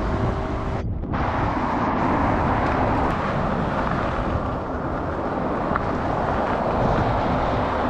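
Wind rushing over the microphone with road and tyre noise while riding an electric bike, a steady rumbling rush with a brief break about a second in.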